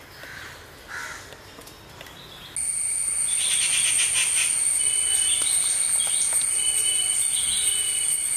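Forest ambience: a few faint bird calls, then about two and a half seconds in a loud, steady, high-pitched insect shrilling starts suddenly, with a chirping pattern over it.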